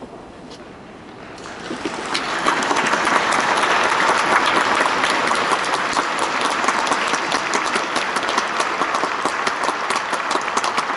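Stadium crowd applauding, with clapping swelling in about a second and a half in and then holding steady.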